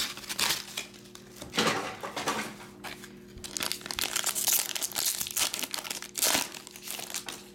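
Foil wrapper of a Panini trading card pack crinkling and tearing as it is peeled open by hand, in irregular bursts of crackling.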